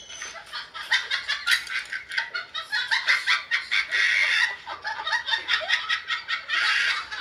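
Someone laughing in high-pitched giggles, a long run of quick repeated bursts.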